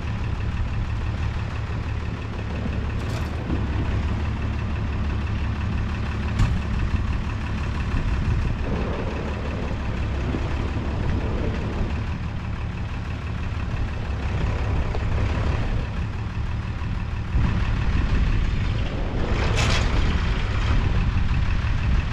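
A heavy engine running steadily at idle, growing louder about three-quarters of the way through, with a brief rushing noise shortly after.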